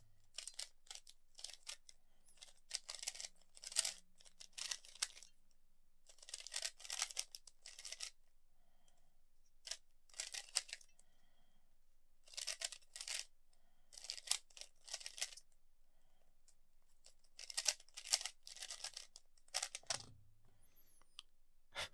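Plastic 3x3 speed cube, freshly lubricated, being turned fast in a timed solve: bursts of rapid clicking turns broken by short pauses.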